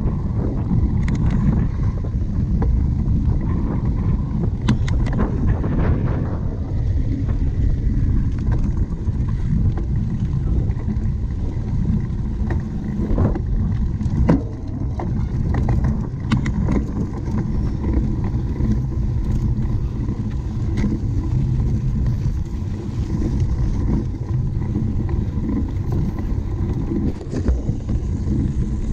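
Steady wind rumble on the microphone of a camera carried along on a cyclocross bike, with scattered sharp clicks and knocks.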